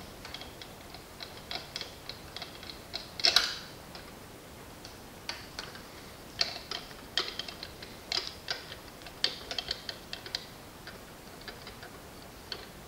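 Irregular light metallic clicks and ticks, with one louder click about three seconds in, as a 5 mm hex key turns out the rear rocker-arm shaft bolt of a KTM 690 cylinder head.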